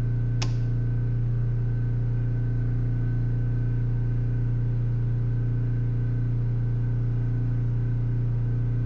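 Portable generator engine running steadily under the household load, a constant low drone. A single sharp click about half a second in, a circuit breaker being snapped on.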